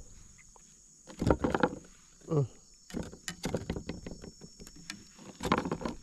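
Knocks, taps and rustles of a small just-caught fish being handled and unhooked on a plastic kayak. About two seconds in there is a short falling grunt-like sound.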